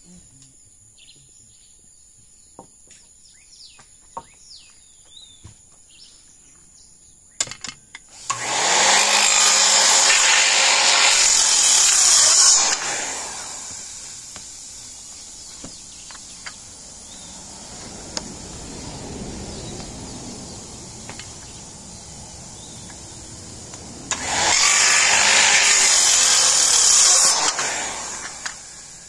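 Corded circular saw (skill saw) cutting through a rough slab board in two passes: the first lasting about four seconds, starting about eight seconds in, the second about three seconds long near the end.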